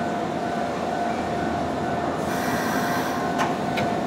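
Nankai commuter trains standing at a station platform, giving off a steady whine from their onboard equipment. A brief high hiss comes about two seconds in, and a couple of short clicks follow near the end.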